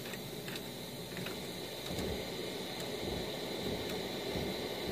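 Aguilar DB751 bass amp idling through its speaker cabinet with no signal, giving a steady hiss and hum that gets louder about two seconds in as the knobs are turned up. The hiss is normal for the amp with its freshly replaced 12AX7 preamp tubes, and there is no 'ocean' noise. A few faint clicks come near the start.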